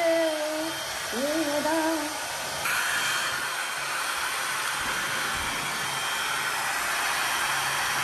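FeeKaa hair dryer running with a steady blowing rush of air. A woman sings a few notes over it in the first two seconds. About three seconds in, the air noise turns brighter and a little louder as the dryer's setting is changed.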